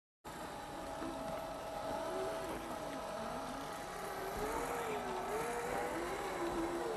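Radio-controlled scale crawler's electric motor and gearbox whining, the pitch rising and falling with the throttle as the truck crawls along. It starts after a brief silence a moment in.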